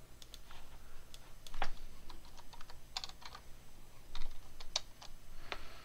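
Typing on a computer keyboard: irregular, scattered keystroke clicks.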